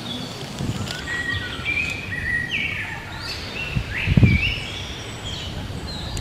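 Folding shovel digging into loose soil, with dull thuds and scrapes, the loudest thud about four seconds in. Birds chirp and whistle steadily throughout.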